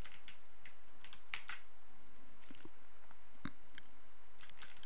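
About a dozen faint, irregular computer keyboard and mouse clicks over a steady background hiss, the sharpest a little past the middle.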